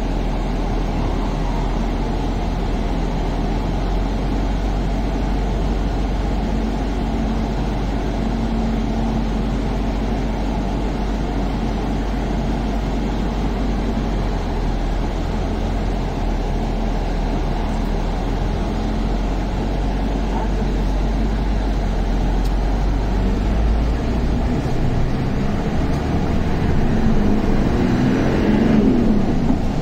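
Engine and road noise heard from inside the cab of a heavy vehicle under way: a steady rumble with a deep drone that drops away about twenty-four seconds in.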